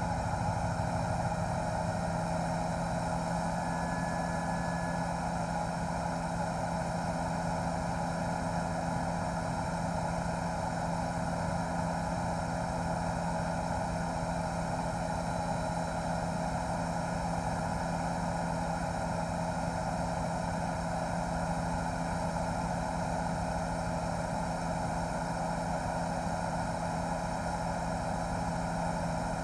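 Steady drone of a news helicopter's engine and rotors heard from on board, with constant hum tones and no change in pitch.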